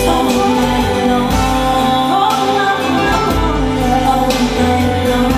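A song with singing, played back loud through Ciare PW 256 and Sica 9470 loudspeakers, with a strong, full bass.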